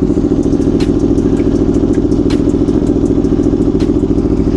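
Aprilia Tuono Factory motorcycle with a Leo Vince exhaust, its engine running at a steady, even pitch, neither revving up nor down.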